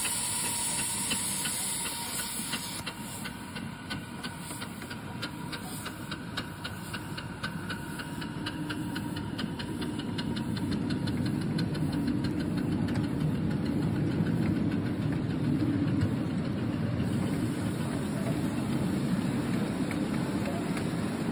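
Ride-on miniature live-steam locomotive: a steam hiss that stops about three seconds in, then a rhythmic beat that quickens as the train gets moving. After that, a low rumble of wheels on the rails grows louder as the miniature coaches roll past.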